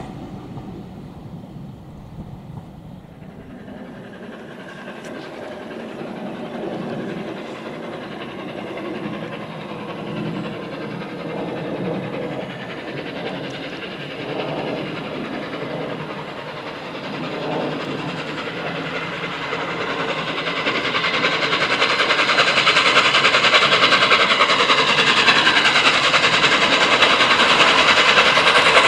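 LNER A3 Pacific 'Flying Scotsman', a three-cylinder steam locomotive, approaching under steam with its train, getting steadily louder and loudest in the last few seconds as it draws near.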